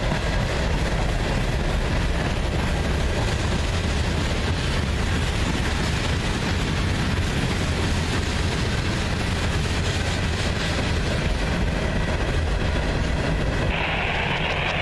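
Freight cars of a long CSX mixed freight train rolling past, covered hoppers and tank cars: a steady rumble of steel wheels on rail, strongest in the low end.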